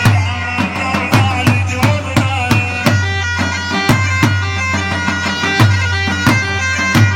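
Iraqi choobi dance music: an instrumental passage with a reedy, bagpipe-like lead over a steady drum beat of about three strikes a second and a low bass.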